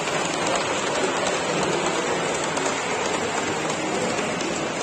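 Steady, even background noise of a large exhibition hall: a dense hiss with no single sound standing out and no clear voices.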